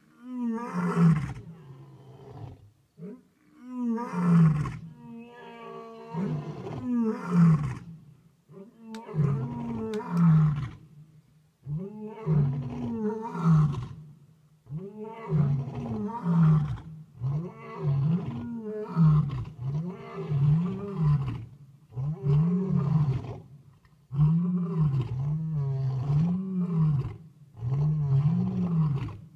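Lion roaring in a full roaring bout: a few long, deep roars, then a run of shorter grunting roars that come closer together, each rising and falling in pitch.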